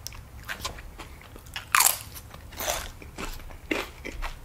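Biting into a cheese-sauced tortilla chip: a loud crunch a little under two seconds in, followed by a few more crunches as it is chewed.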